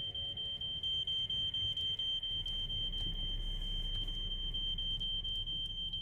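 Smoke alarm sounding: one shrill high electronic tone held without a break, with a fast flutter in it. A deep low rumble comes in underneath about two seconds in.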